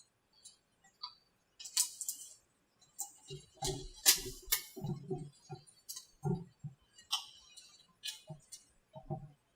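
Irregular clicks, taps and dull knocks of a male mold being worked and pried loose from its female mold. A cluster of louder knocks comes in the middle, and a few lighter clicks come near the start and end.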